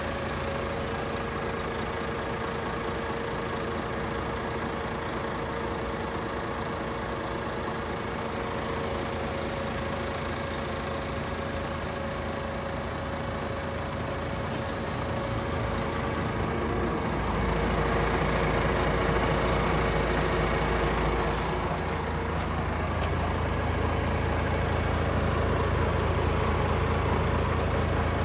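DAF CF440 tractor unit's Paccar 440 bhp Euro 6 diesel engine idling steadily, a continuous low hum that grows louder in the second half.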